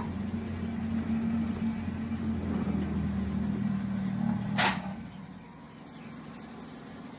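Battery-powered shunting locomotive rolling slowly past, its electric drive giving a steady low hum that fades out about five seconds in. A brief sharp hiss stands out just before the hum dies away.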